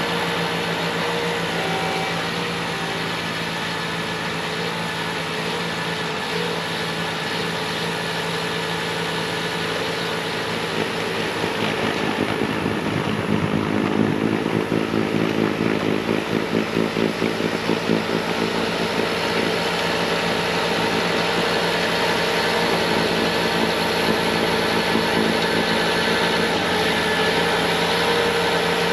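Bobcat T66 compact track loader's diesel engine running steadily at full throttle with its snowblower attachment throwing wet slush. Midway it grows louder and pulses rapidly for several seconds before settling back to a steady run.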